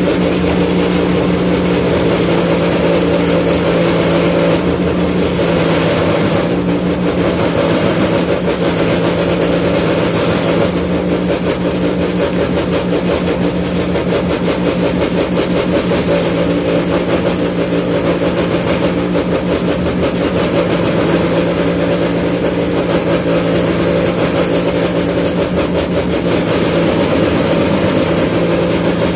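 Electric bench buffer running steadily with a motor hum, as a knife's micarta handle scales are polished against its wheel charged with brown buffing compound; the rubbing noise of the work on the wheel shifts now and then.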